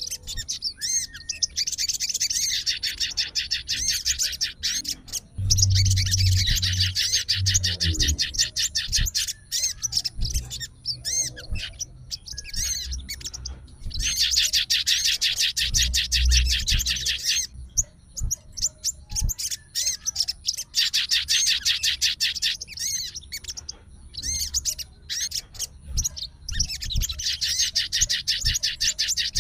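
Sogon, a sunbird, singing in bouts of rapid, high chirping trills, each a few seconds long with short pauses between. A fighting-type song used to provoke other birds to answer.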